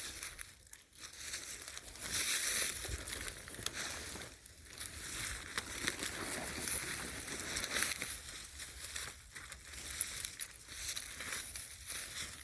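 Footsteps crunching and rustling through dry leaf litter and brush while walking through thick woods.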